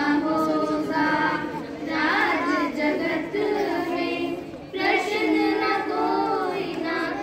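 A small group of schoolgirls singing a Hindi devotional bhajan together in long held phrases, with a short break for breath about four and a half seconds in.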